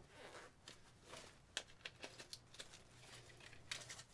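Near silence with faint, scattered clicks and rustles, as of a small object being handled, over a faint low hum.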